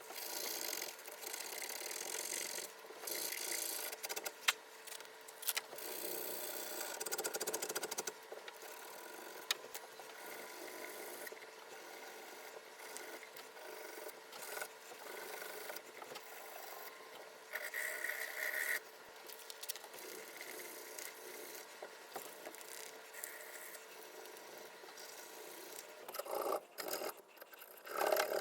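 Hand sanding on a forged knife: sandpaper rubbing and scratching in uneven strokes, with a few light knocks.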